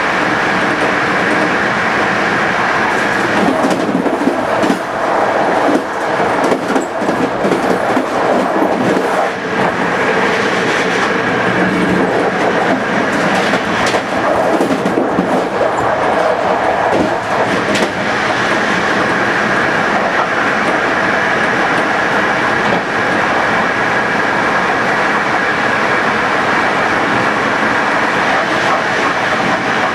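Passenger train running at speed, heard from aboard: steady rolling noise from the wheels and rails, with a clatter of wheel clicks over rail joints and points that is busiest between about 3 and 18 seconds in.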